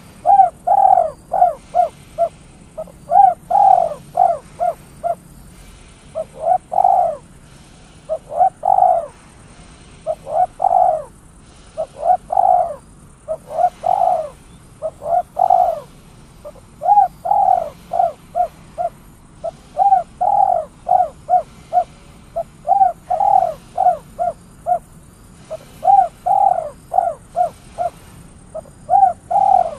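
Spotted dove (tekukur) cooing over and over in the 'kuk 3' style. Each phrase is a loud rising coo followed by a few shorter ones, with a new phrase about every two seconds.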